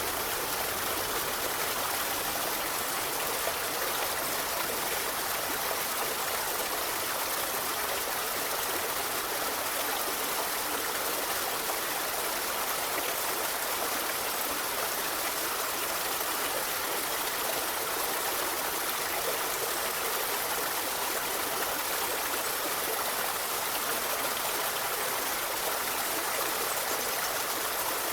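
Forest river flowing over rocks: a steady rushing and babbling of water with no breaks.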